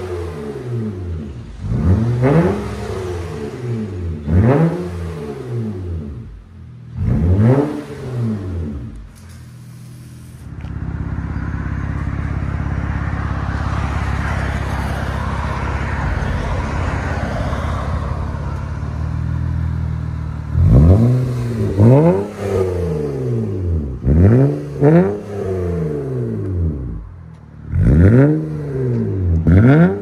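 Honda Accord 3.0L V6 through a single 2.5-inch exhaust with a Dynomax Race Bullet in place of the factory resonators, revved hard in sharp throttle blips, each rising and falling back. About four blips come in the first nine seconds, then the engine is held steady for about ten seconds, then several more quick blips follow, some in pairs.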